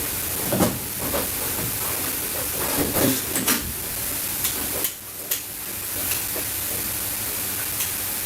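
Steady hissing noise with a few scattered clicks and knocks.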